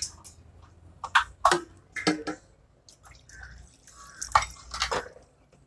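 Water poured from a bowl into a metal pot holding a whole chicken, heard as several short, separate splashes and drips. It is the water going in to boil the chicken for stock.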